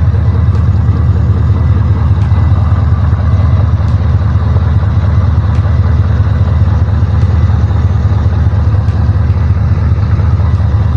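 5th gen Camaro engine idling steadily with a deep, even rumble, after a power steering pump replacement. Faint ticks recur about every second and a half.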